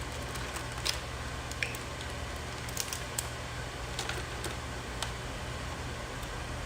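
Crab legs being eaten by hand: a handful of small sharp clicks and cracks of shell, spaced irregularly about a second apart, over a steady low hum.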